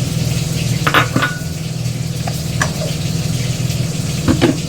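Chicken koftas sizzling as they fry in oil in a kadai, over a steady low hum, with a few clinks of a utensil about a second in, near the middle and near the end.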